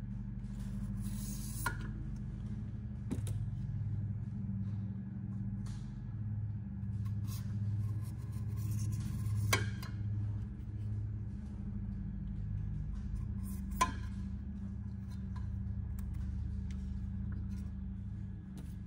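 Razor blade trimming the edges of a self-adhesive Teflon non-stick sheet: faint scraping strokes and a few sharp clicks, two of them louder in the middle, over a steady low hum.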